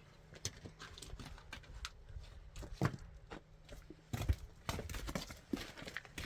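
Irregular knocks and taps, the loudest about three and four seconds in, over a faint low hum.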